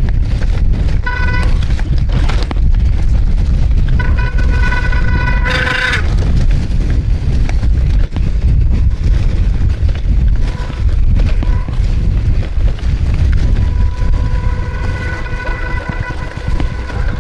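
Mountain bike on the move on a trail: heavy wind and rolling rumble on the microphone, with a steady buzzing tone that cuts in briefly about a second in, again from about four to six seconds, and returns from about ten seconds on.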